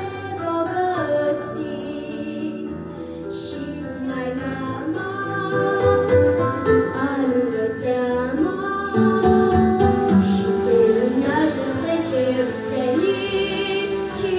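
A young girl singing a Romanian song into a handheld microphone over instrumental accompaniment, growing louder from about halfway through.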